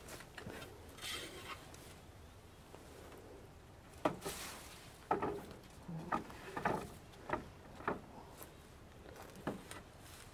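Wooden compost-bin slats knocking against the wooden bin frame as they are fitted back into its front. About four seconds in, a string of separate sharp knocks begins, roughly nine of them over the next six seconds.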